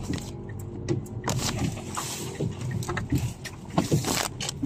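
Inside a moving car: a steady low rumble of engine and road, with irregular light knocks and rattles as it rolls slowly.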